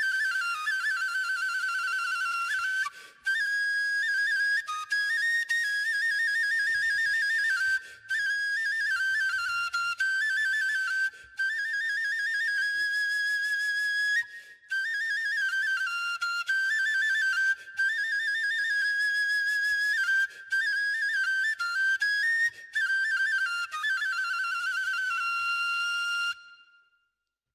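Solo folk flute playing a high, ornamented melody in quick stepwise runs and trills, breaking off briefly for breath every few seconds. The last note fades out near the end.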